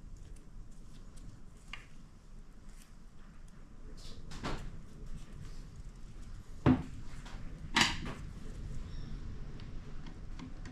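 Metal transmission parts being handled on a workbench during disassembly: light clicks and a few knocks, the loudest two close together about two-thirds of the way through.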